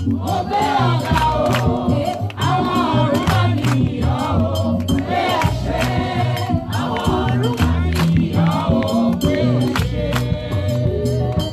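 Live gospel singing: a woman's voice, amplified through a microphone, leads a song over a steady bass accompaniment and rattling percussion, with other voices joining in.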